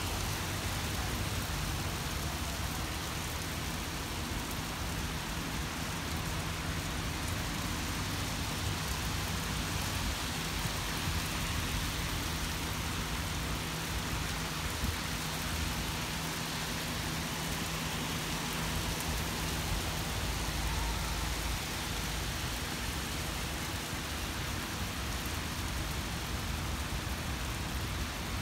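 Heavy rain falling steadily on a wet street and pavement, a continuous hiss with a low rumble underneath.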